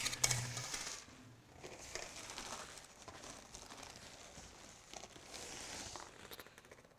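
Packaging crinkling and rustling as contents are handled out of a sewing-machine box, with a sharp click just after the start.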